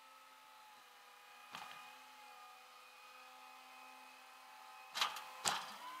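Flatbed tow truck running with a steady hum, broken by sharp knocks: a small one about a second and a half in and two loud ones about half a second apart near the end.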